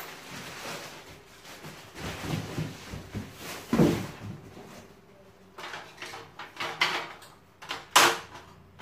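Irregular knocks and rustles as a large cardboard box and its plastic wrap are shifted about, with a louder bump about halfway through. Near the end a sharp clack as hands grab the rails of an aluminium folding ladder.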